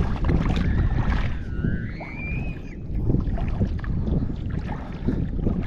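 Wind buffeting the microphone over the wash of the sea. About a second in, a brief high-pitched wavering tone rises and falls.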